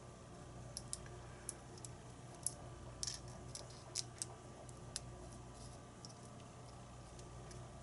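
Faint, scattered metal clicks and ticks of a shim being worked into a challenge lock during disassembly, about a dozen small taps in the first five seconds, then fewer.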